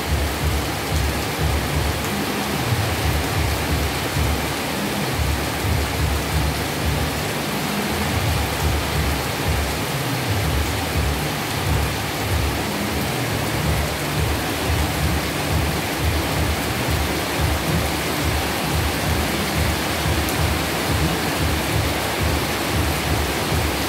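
Heavy rain falling steadily in a dense, even hiss, with a fluctuating low rumble underneath.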